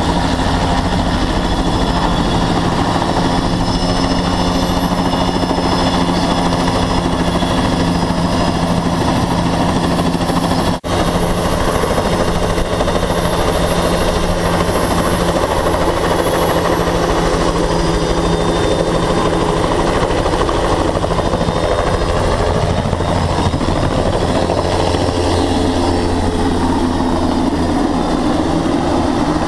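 Crop-dusting helicopter's engine and rotor running loud and close, steady throughout. The sound drops out for an instant about eleven seconds in.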